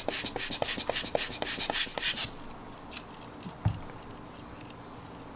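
A hand air blower squeezed in quick succession, about four puffs a second, blowing alcohol out of a Canon AE-1's aperture gear assembly to dry it. The puffs stop about two seconds in, leaving a few faint clicks.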